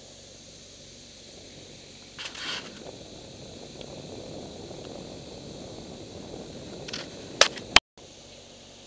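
Handling noise of a body-worn camera being moved around: a rough scrape about two seconds in, several seconds of rubbing, then two sharp knocks near the end. Right after the knocks the sound cuts out for a moment. A steady hiss runs underneath.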